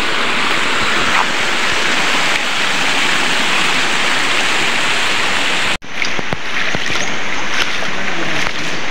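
Steady rush of a shallow stream running over stones. It breaks off abruptly about six seconds in and picks up again, now with a few sharp clicks.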